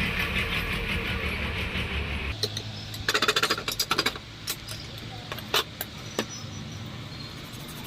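A steady low rumble for the first couple of seconds, then a quick run of sharp metallic clicks and clinks about three seconds in, followed by a few single clicks.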